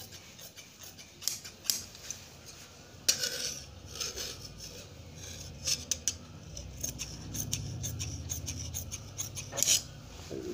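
Large tailoring scissors cutting through dress fabric: a run of short, crisp snips at irregular intervals as the blades close along a curved line.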